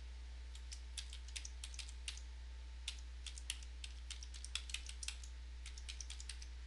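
Computer keyboard typing: quick runs of key clicks with a short pause about two seconds in, over a steady low hum.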